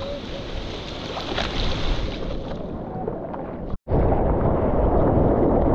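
Ocean surf and churning water heard on a GoPro's microphone at water level. The sound cuts out for an instant about two-thirds in, then comes back as a louder, lower rush of wind and water buffeting the mic.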